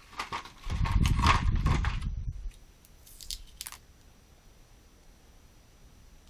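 Plastic toy pieces and packaging handled close to the microphone: crinkling, crunching and clicking, loudest for about a second and a half starting just under a second in, then a couple of light clicks.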